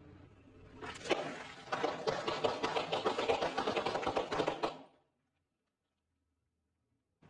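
Car tyre rolling over a row of sealed snack-chip bags: dense crackling and crunching of plastic packets and chips, with sharp pops as bags split open, for about four seconds before it cuts off.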